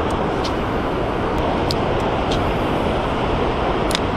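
Steady wind rushing over the camera microphone on a windy riverbank, with a few faint clicks from a spinning reel as the lure is cast and the bail snapped shut.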